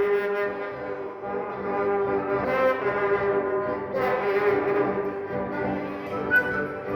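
Live music from an orchestra of Andean and Latin American instruments: several instruments holding long sustained notes together, the chord changing every second or two.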